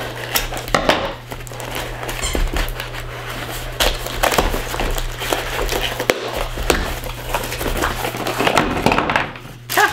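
A brown paper parcel sealed with tape is snipped with scissors, then torn open and crumpled by hand, with a steady run of crinkling, ripping and crackling.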